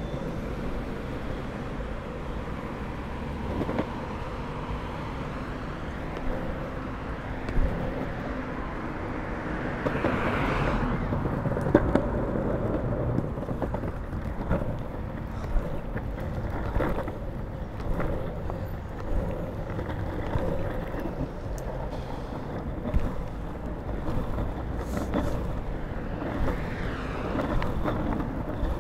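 Longboard wheels rolling over a paved footpath: a steady rumble with occasional sharp clicks and knocks from joints and bumps in the pavement, with road traffic passing alongside.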